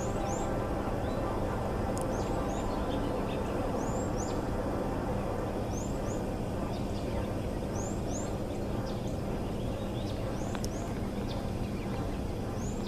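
A bird singing a repeated phrase of two short, high rising whistles, about every one to two seconds. Underneath is a steady low hum and rumble.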